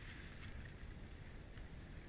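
Skis sliding over packed snow with a steady hiss, and wind rumbling on the microphone of a camera carried by a moving skier.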